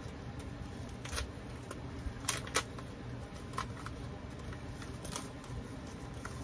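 Small packaging being handled by hand: scattered light clicks and rustles, the sharpest a pair about two and a half seconds in, over a steady low hum.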